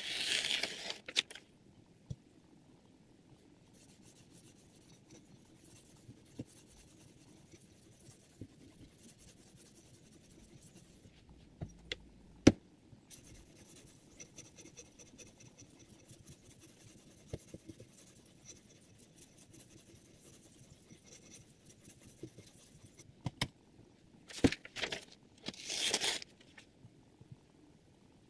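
A knife edge slicing through a sheet of paper at the start, then faint, steady scraping of a sharpening stone drawn along the blade on a guided knife sharpener. There is one sharp click about twelve seconds in, and a few louder scrapes and clicks near the end.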